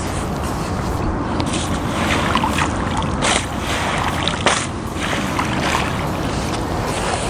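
Wind buffeting the microphone in a steady rumble, with a few short sharp noises in the middle.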